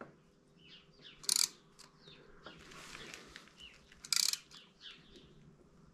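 Birds chirping: short, high chirps about every two to three seconds, with smaller notes between and a faint hiss near the middle.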